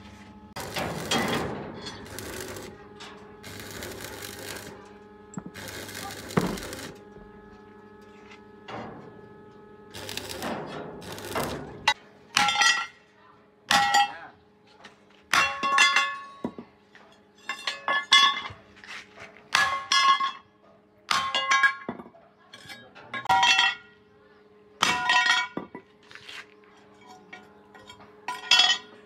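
Metal striking metal while the steel parts of a rice threshing machine are worked on: a few rough, noisy scrapes at first, then a run of sharp ringing clanks about one every second or so.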